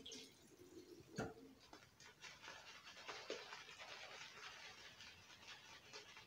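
Faint, scratchy swishing of a shaving brush working lather onto a bearded cheek, with a single sharp click about a second in.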